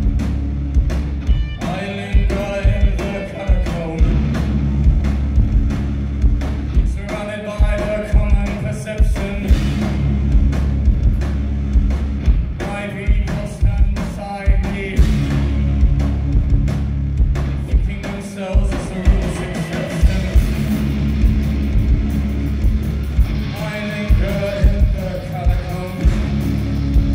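Live band playing loud amplified music with electric guitar, a heavy low end and drums keeping a steady beat. A melodic lead line, sung or played, comes in short phrases every few seconds.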